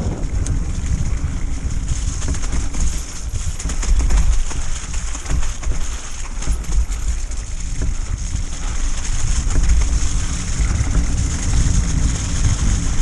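Mountain bike riding down a rough, muddy trail: a steady low rumble of wind buffeting the action camera's microphone and tyres on the ground, with the bike rattling and knocking over bumps.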